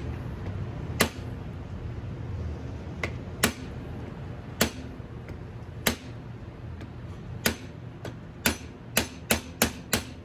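Sharp metal-on-metal hammer blows on a screwdriver set in a stripped, rounded screw head, struck to shock the seized screw loose. There are about eleven single strikes at uneven spacing, with a quicker run of about five near the end, over a steady low hum.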